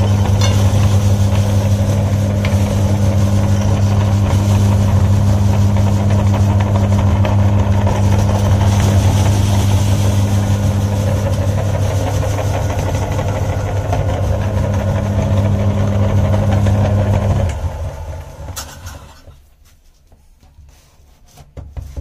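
Belt-driven metal meat grinder running with a steady motor hum while Oreo cookies are fed in and ground. About seventeen seconds in it is switched off and the hum dies away over about two seconds, followed by a few light knocks near the end.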